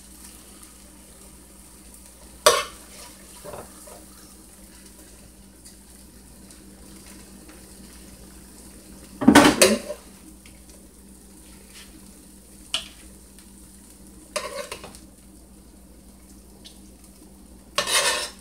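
Kitchen utensils and cookware clattering as browned beef short ribs are moved from a frying pan into a crock pot: a few separate clanks and scrapes, the loudest cluster about nine seconds in, over a faint steady sizzle from the hot pan.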